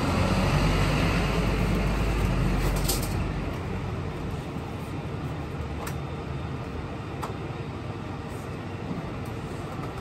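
Low engine rumble of a large road vehicle going by, loud for about three seconds and then fading into steady street background, with a few light knocks and clicks.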